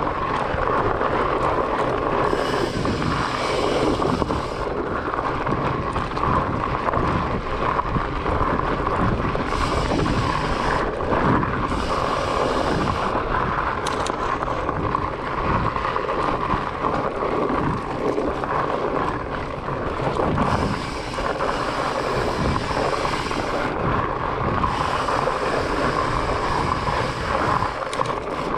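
Trek Farley 9.6 fatbike ridden over a dirt forest singletrack, heard from a camera on the bike or rider: a steady noisy rumble of the knobby fat tyres on the trail and wind across the microphone, with frequent small knocks and rattles from the bike over bumps.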